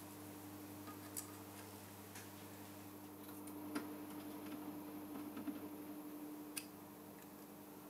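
Soldering iron tip working on a circuit board to lift off a small SMD capacitor: a few faint, sharp ticks over a quiet, steady hum.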